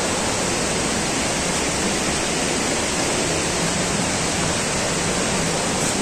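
Steady rushing of water from the waterfall's stream: an even, unbroken hiss with no single splashes standing out.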